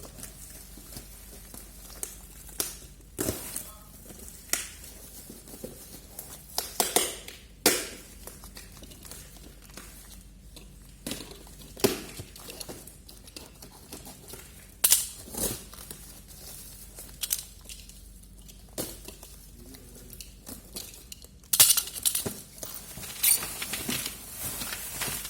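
Plastic packaging crinkling and rustling in irregular bursts, with hard plastic GPS phone holders clicking and clacking as they are unpacked and handled.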